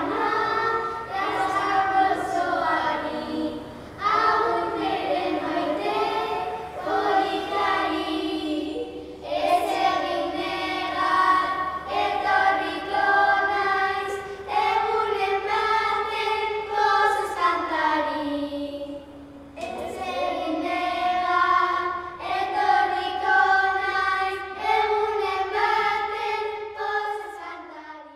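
Children singing a song together as a group, phrase after phrase; the song ends just at the close.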